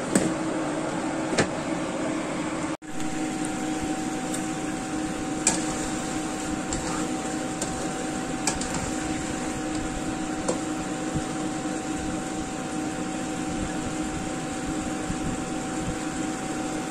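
Chicken wings simmering in a bubbling Coca-Cola sauce in a nonstick wok, under a steady whirring hum from a kitchen appliance, with a few light clicks of a spatula against the pan. About three seconds in the sound drops out for an instant, and a steady higher whine then joins the hum.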